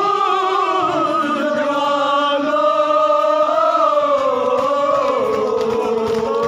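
A crowd of men chanting together in long, held melodic phrases, the pitch sliding slowly and falling in the second half.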